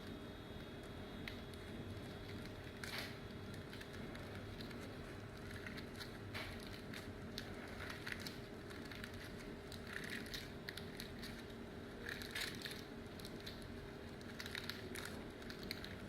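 Hands squeezing and pressing a lump of clear glue slime that has gone hard and clumpy from too much activator, making faint irregular crackles and small squishes.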